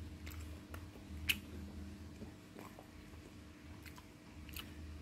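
Faint chewing of a bite of roti beras, a Bugis rice-flour cake, with a few small mouth clicks, the sharpest about a second in, over a steady low hum.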